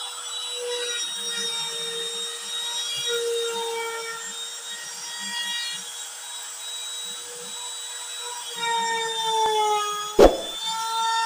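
Homemade CNC router's spindle motor running with a steady high-pitched whine, its pitch wavering slightly as the bit carves MDF, with a light rasp of cutting underneath. About ten seconds in there is a single short, loud knock.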